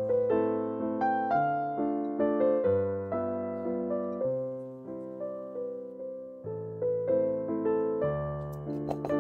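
Background piano music: a slow melody of struck, fading notes over a bass note that changes every second or so.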